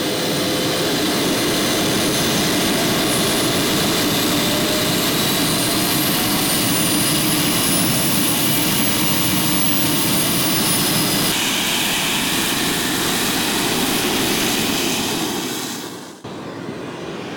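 Twin JetCat P120 model jet turbines of a large RC BAe 146 running on the ground: a loud, steady rush with a high whine that rises slightly in pitch. About 16 seconds in the sound drops off suddenly and a quieter turbine sound carries on.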